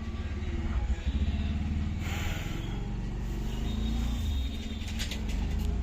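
Steady low rumble of passing highway traffic, with a few faint metallic clicks about five seconds in.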